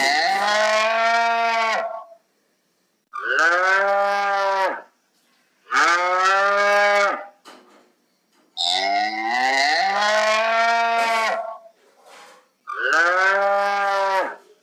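Cow mooing: five long calls in a row, each arching in pitch, with clean silence between them.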